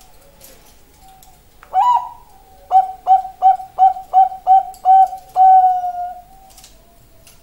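Bangkok-type zebra dove (perkutut) cooing its song: one opening note, then seven short quick coos at about three a second, ending in one long drawn-out note.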